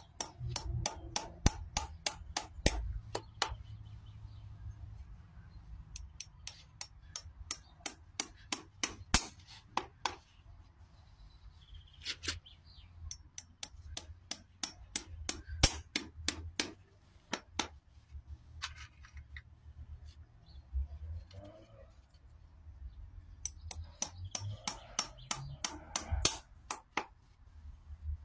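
Farrier's hammer tapping horseshoe nails into a horse's hoof: runs of sharp metallic taps, several a second, broken by short pauses.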